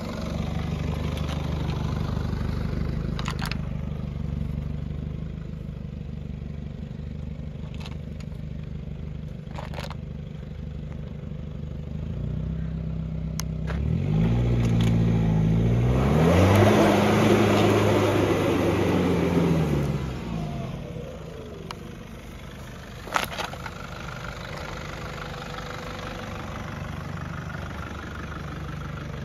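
Nissan Patrol Y61's 3.0-litre turbo-diesel engine running steadily, then revving up in steps from a little under halfway through as the truck pulls away off-road. It is loudest for a few seconds before dropping back to quieter running, with one sharp knock a few seconds later.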